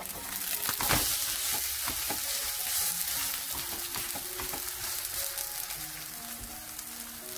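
Squid and wild chive pancake sizzling in hot oil in a frying pan. About a second in it is flipped with a spatula and the sizzle jumps louder, then eases slowly.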